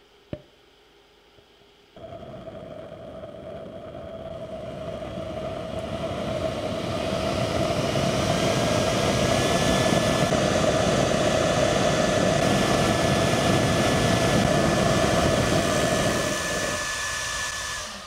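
Homemade hairdryer-fan jet engine burning butane: after a click, the fan starts suddenly about two seconds in with a steady whirring whine. The rush of air and flame through the acrylic tube builds for several seconds, holds steady with a thin higher whine added, and dies away near the end.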